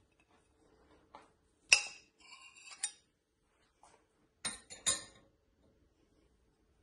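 China dishes and a serving utensil clinking: a sharp clink, then a brief ringing tone with another clink, and two more clinks near the end.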